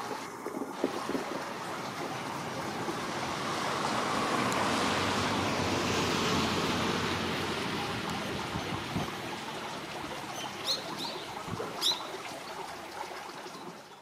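Road traffic passing: a steady hiss of tyre noise that swells and then fades. Near the end, a bird gives two short, high calls about a second apart.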